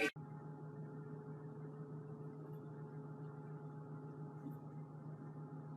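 Faint, steady low hum with no other sound.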